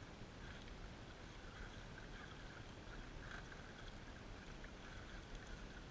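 Faint whir of a radio-controlled scale crawler's electric motor and geared drivetrain as it creeps slowly down over rocks.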